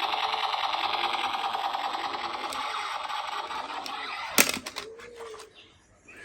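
A steady, rapid mechanical rattle, like a small motor buzzing. It stops with a single loud click about four seconds in, and it is much quieter after that.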